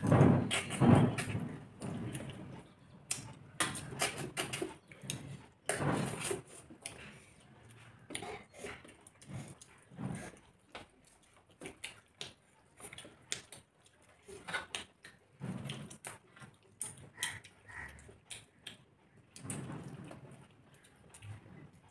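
Eating sounds of two people eating rice and curry with their hands: chewing and mouth smacks, with fingers mixing food on metal plates. They come as many short, irregular clicks and squelches.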